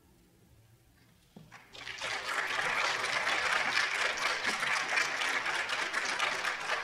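Audience applauding: the clapping breaks out about a second and a half in and quickly builds to steady applause.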